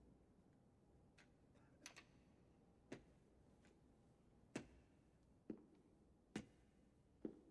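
A man walking slowly on crutches: sharp knocks of the crutch tips and his foot on the floor, roughly one a second, in an otherwise quiet room.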